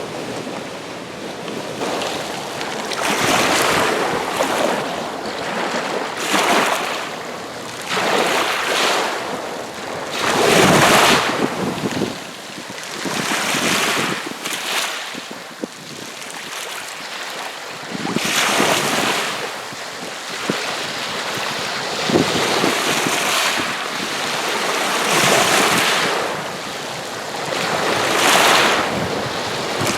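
Small lake waves on Green Bay washing in against the shore, a fresh surge of splashing every two to three seconds.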